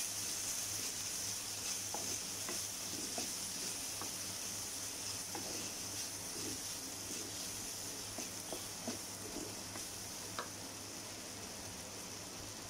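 Sliced onions, green chillies, ginger and garlic sizzling steadily in hot oil in an earthenware pot, the sizzle easing slightly over time. A wooden spatula scrapes and taps against the pot as the mixture is stirred, with a sharper click about ten seconds in.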